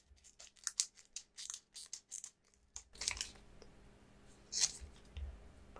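Foil wrapper of a Pokémon booster pack being torn open: a quick run of sharp, crackly tearing over the first three seconds, then two louder rustles about three and four and a half seconds in.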